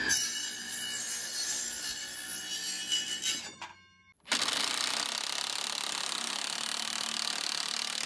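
An 18 V cordless circular saw running with a steady motor whine as it cuts the rotten wooden edge of a door. It breaks off after about three and a half seconds, and from about four seconds in a Bosch cordless driver runs steadily with a fine rattle, driving a screw into a wooden batten.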